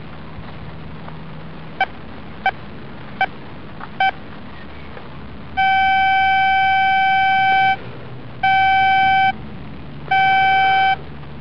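Metal detector's audio signal: four short beeps as the coil sweeps, then a steady tone of the same pitch held about two seconds and two shorter ones of about a second. The held tones signal metal under the coil.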